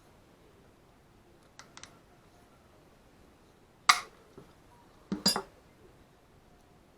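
Sharp metallic clicks and clinks of a hand crimping tool and small metal parts being worked: two faint ticks about a second and a half in, one loud snap about four seconds in, and a quick cluster of clinks about a second later.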